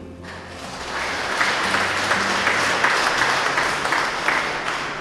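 Audience applauding, swelling over the first second or so and tapering off toward the end.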